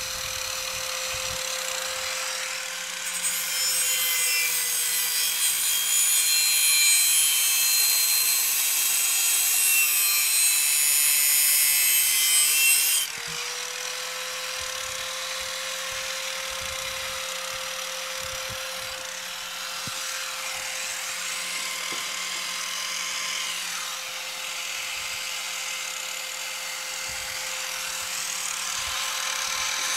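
Corded angle grinder running with a steady whine, its disc grinding against a lawn tractor mower blade's edge to sharpen it. The grinding is heavy and loud from a few seconds in until about halfway through, then cuts back suddenly to lighter contact.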